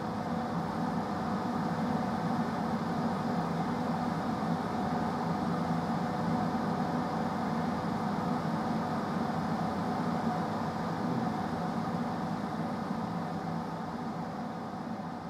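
Fume extractor fan running steadily, drawing air in through a flat-screen hood: a constant rush of air with a low hum.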